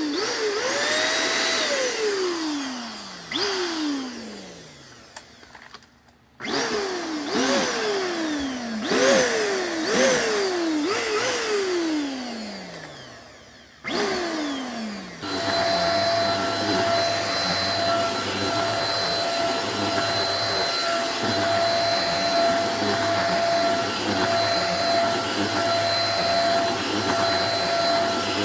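Puppyoo handheld futon vacuum cleaner's motor switched on and off several times, its pitch sliding down as it winds down after each start. From about halfway through it runs steadily with a constant whine.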